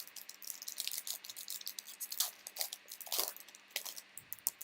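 Trading cards and their foil pack wrapper being handled: a dense, irregular crackling and clicking that stops near the end.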